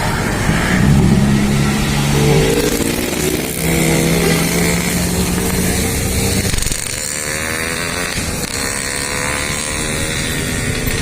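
Bus traffic: held horn-like tones that step between a few pitches for about six seconds, then an engine rising in pitch as a vehicle accelerates past.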